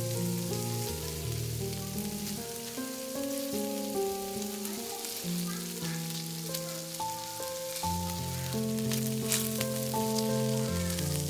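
Sausages sizzling as they fry in a nonstick frying pan, with a few sharp crackling spits. Soft background music with held notes plays along.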